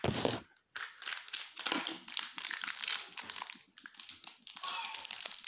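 Plastic packaging crinkling and crackling as it is handled, with small irregular clicks and taps; the sound drops out briefly about half a second in.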